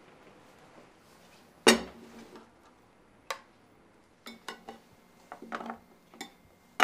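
Tableware being handled: a ceramic plate and white plastic lunch boxes set down on a table and a metal spoon knocking against the plate. A sharp knock a little under two seconds in is the loudest, another follows just after three seconds, then comes a run of lighter clinks and taps and a last sharp knock at the end.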